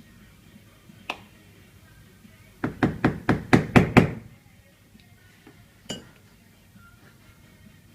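A quick run of about eight sharp taps or knocks, about five a second, with a single click about a second before them and another about two seconds after.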